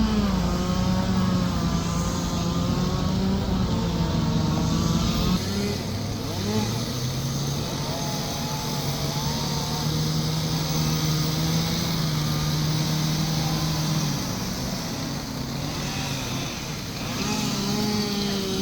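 Two-stroke chainsaws running at the carving site, their engine pitch holding steady and then shifting as the throttle changes. The sound changes abruptly about five seconds in.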